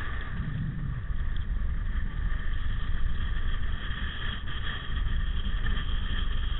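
Wind noise on a windsurf board's action-camera microphone, mixed with water rushing and slapping on choppy waves: a steady low rumble with a hiss over it.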